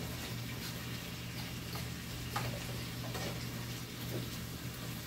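A metal spoon stirring food in a frying pan, clicking and scraping against the pan in scattered, irregular ticks over a steady low hum.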